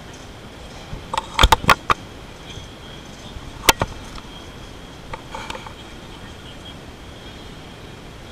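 A small cardboard product box being picked up and handled: a quick cluster of sharp clicks and knocks about a second and a half in, a single sharp click near four seconds, and softer clicks and rustling around five seconds, over a steady hall background noise with a faint high tone.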